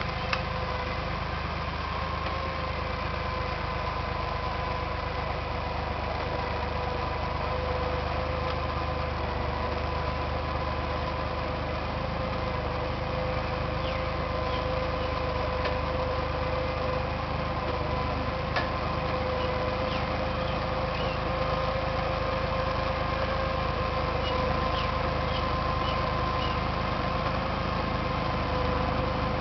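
Bulldozer's diesel engine running steadily, a low hum with a constant whine on top and a few scattered faint clicks.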